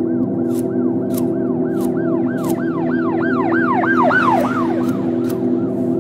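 Film soundtrack: a steady low ambient drone under a warbling, siren-like electronic chirp that repeats about three times a second, growing louder and quicker toward about four seconds in, then fading. A few sharp high ticks fall among the chirps.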